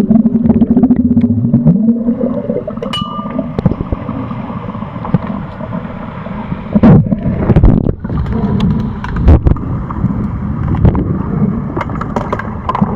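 Underwater pool sound during an underwater hockey game: a muffled wash of water and bubbles, with a low hum and a short rising tone in the first two seconds, then many sharp clicks and knocks as players' sticks and the puck strike the tiled pool floor.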